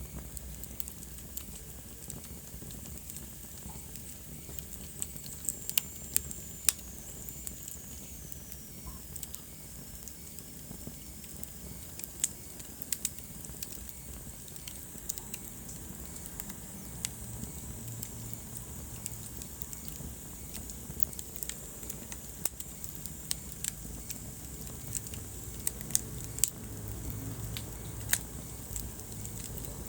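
Wood fire burning in a fireplace: a steady low rumble of flames with irregular crackles and sharp pops. About six seconds in, a faint high whistle slowly falls in pitch.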